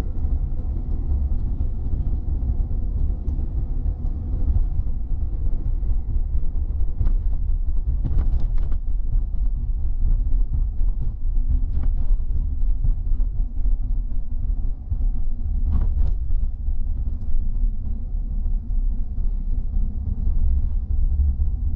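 Car cabin noise while driving on a wet road: a steady low rumble of road and engine noise heard from inside the car, with a few brief sharper sounds.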